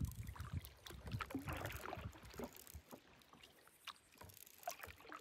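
Kayak paddle dipping in calm water: soft splashes and drips with small clicks, growing fainter after about three seconds.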